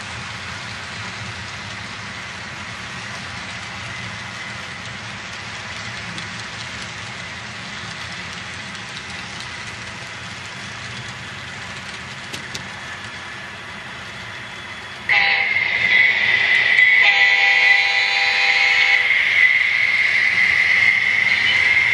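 Model freight train cars rolling steadily along the track. About fifteen seconds in, a diesel locomotive horn starts sounding loudly and holds on, its chord shifting about two seconds later.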